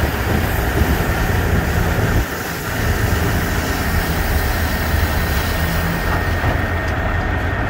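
Diesel engine of a Peterbilt 359 dump truck running steadily under light load as it creeps forward with the bed raised, spreading gravel out the tailgate, with the rush of gravel sliding off the bed over it. The engine note dips briefly a couple of seconds in.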